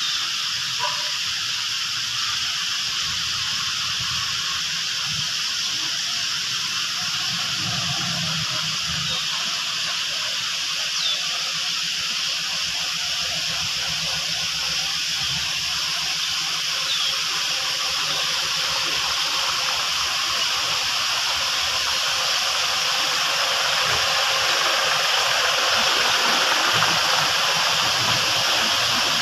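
A steady, even hiss that grows slightly louder near the end, with two faint short chirps in the middle.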